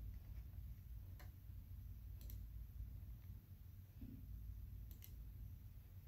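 A few faint, sharp computer mouse clicks, spaced a second or more apart, over a low steady hum.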